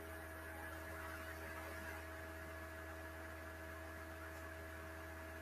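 Faint steady electrical hum with a few constant tones over a soft hiss: background room tone, with no other sound.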